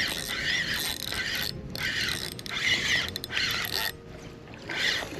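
Fishing reel being cranked and clicking as a hooked redfish is reeled in, the winding pausing briefly a couple of times.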